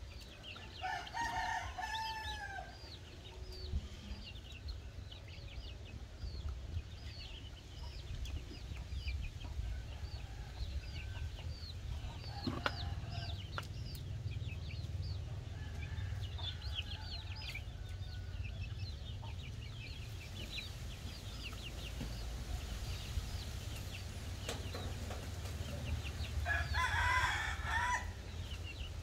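A brood of half-grown chicks peeping constantly in short high chirps while they peck at grain, with two louder, longer calls from a grown chicken, one about a second in and one near the end.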